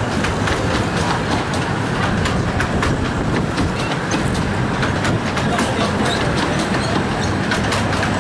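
A train of 15-inch-gauge miniature railway passenger coaches rolling past, a steady rumble with frequent clicks as the wheels run over the rail joints.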